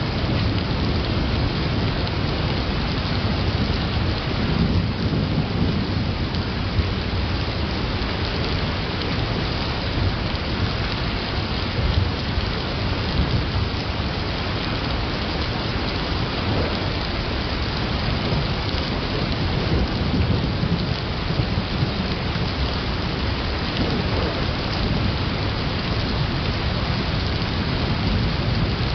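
Steady rain during a thunderstorm, with low thunder rumbles swelling a few times, about five seconds in and again later.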